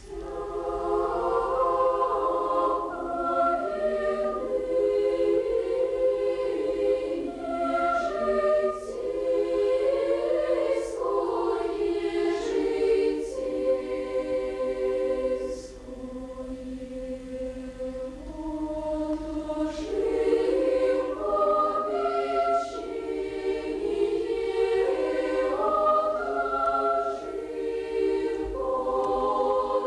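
Children's choir singing unaccompanied in several parts. The singing begins right at the start, with a short break between phrases about halfway through.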